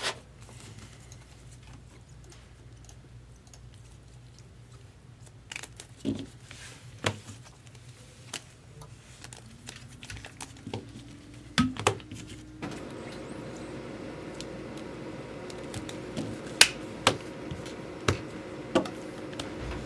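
Plastic trading-card holders clicking and clacking as they are handled and set down on a table, in scattered sharp taps. About halfway through, a hum comes in, rising in pitch and then holding steady.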